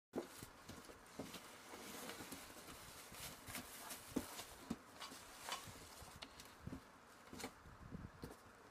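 Faint light taps and clicks, scattered irregularly over a soft rustling.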